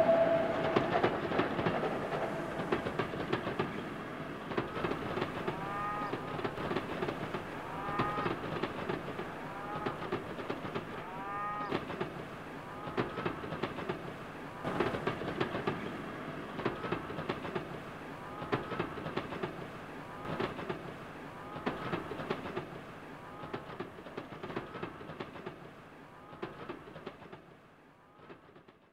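Closing part of the performance's soundscape score: a dense clattering of clicks with short squeaky glides repeating every second or two. It fades out slowly and stops just before the end.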